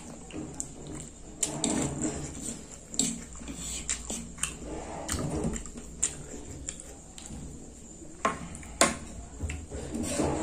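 Close-up eating sounds: instant fried noodles slurped and chewed, with many short, sharp clicks of wooden chopsticks, fork and spoon against each other and the wooden board.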